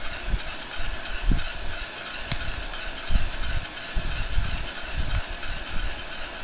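Heat gun blowing steadily into a metal pot of coffee beans as they are stirred with a spoon, with irregular low thuds and a few faint clicks.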